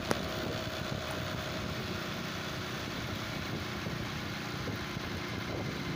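A motorcycle riding along at road speed: its engine running under steady wind noise on the microphone. There is one short click right at the start.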